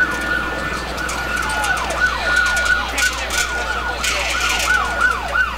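Emergency vehicle siren in yelp mode, its pitch sweeping up and down rapidly about three times a second.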